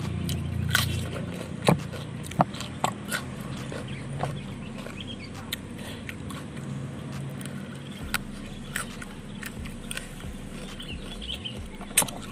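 Close-up chewing of crunchy raw vegetables: scattered crisp crunches and mouth clicks, most frequent in the first few seconds, with two sharper clicks near the end.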